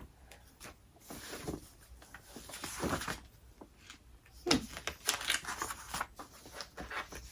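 Packaging being pulled and torn apart by hand, in irregular rustling, crinkling bursts while a vase is dug out of its box.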